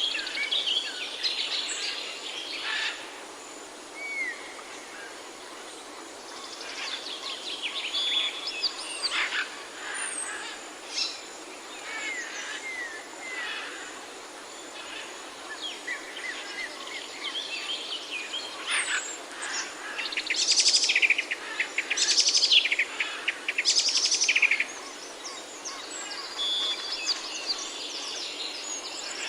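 Songbirds chirping and singing, several calls overlapping: short whistled notes and rising and falling chirps, with louder bursts of fast trilling about two-thirds of the way through, over a steady background hiss.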